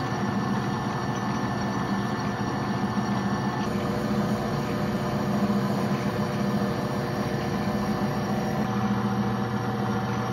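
A 14x40 metal lathe running steadily, its motor and drive making an even hum with several steady tones. The low hum shifts slightly about nine seconds in.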